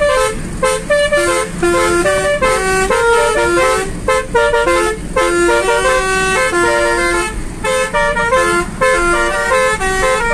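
A tune of held, stepped notes played on a pianika (melodica) together with the car's basuri musical air horn, running on without a break.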